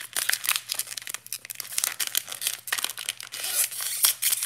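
Plastic wrapper of a Panini Absolute football trading card pack being torn open and crinkled between the fingers: a continuous run of crackling and tearing.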